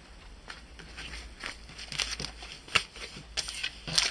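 Clear plastic packaging bag and card stock handled on a tabletop: crinkling and rustling with small clicks and taps, sparse at first and busier and louder from about a second and a half in.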